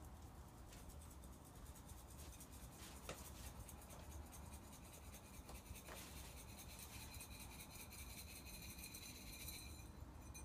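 Faint, fast scratchy patter of a granular soil amendment being sprinkled by hand from a cup onto bare garden soil, over a low wind rumble; very quiet overall.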